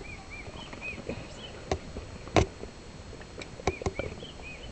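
Male lion feeding on an impala carcass: sharp crunching and tearing bites, the loudest about halfway through and a quick cluster near the end. Short high chirps repeat in the background.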